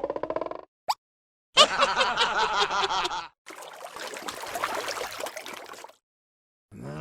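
Cartoon sound effects: a short rising voiced squeak, then a rapid snickering giggle for under two seconds, then a softer hissing, watery noise for a couple of seconds.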